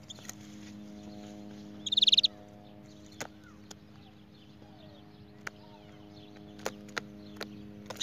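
Canary giving one short, very fast high trill about two seconds in, over a steady low hum, with a few sharp clicks and faint chirps scattered through the rest.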